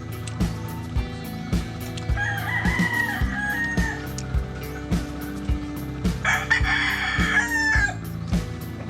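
A rooster crowing twice, the first crow fainter about two seconds in, the second louder about six seconds in, over background music with a steady beat.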